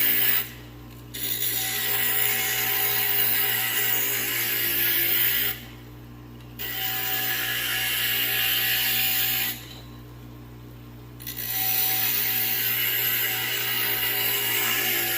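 Wiz CG glass grinder's bit grinding the edge of a piece of glass: a harsh, gritty noise in stretches of three to four seconds. It breaks off three times for about a second, leaving only the grinder motor's steady hum, as the edge is worked down where it sits high.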